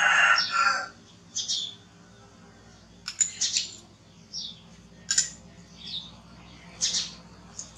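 A rooster's crow ends in the first second. Then come short, high-pitched chirps and squeaks, about seven of them, spaced irregularly.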